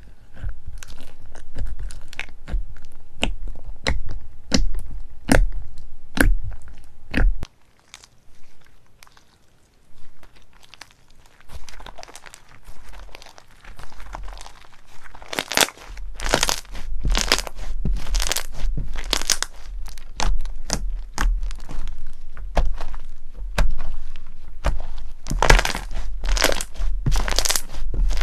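Crunchy slime being squeezed and pressed by hand, giving dense crackling and crunching pops. It stops abruptly about seven seconds in, goes quieter for a while, then louder crackling resumes from about halfway.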